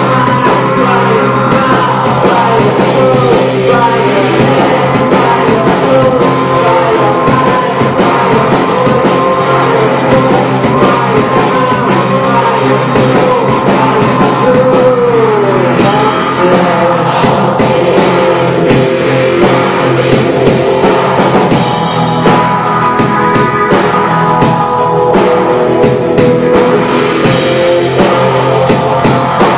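A rock band playing live and amplified: electric guitars, bass and drums, with a voice singing over them.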